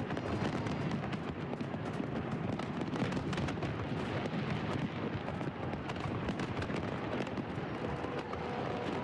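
Fireworks going off: a dense, continuous crackle of many sharp pops over a steady din.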